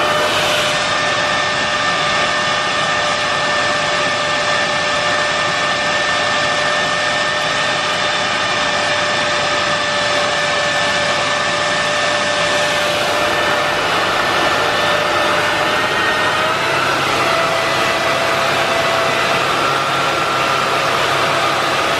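Miele S8590 canister vacuum's 1200-watt motor running steadily under an airflow test, a loud rushing of air with a steady whine. About three-quarters of the way through, the whine steps up slightly in pitch and holds there.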